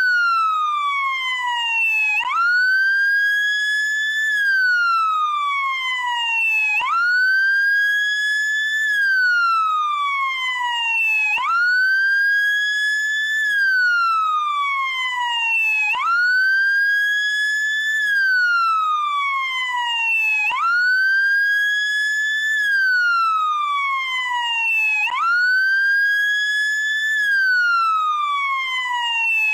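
Electronic wail siren of a SAMU motorcycle ambulance sounding without a break. Each cycle jumps quickly up in pitch, holds near the top, then slides slowly back down, repeating about every four and a half seconds.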